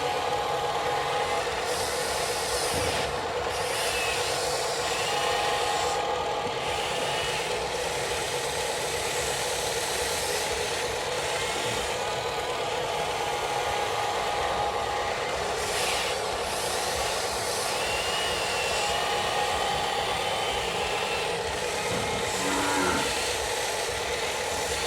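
Small electric motors of radio-controlled construction models running with a steady whine.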